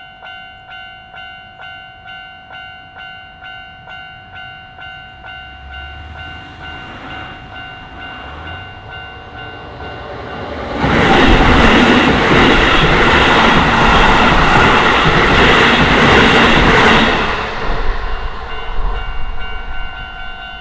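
Japanese level crossing alarm ringing with a steady repeating ding, about one and a half rings a second. About ten seconds in, a Keisei Main Line electric train passes over the crossing loudly for about six seconds, drowning out the bell, which comes back faintly as the train moves away.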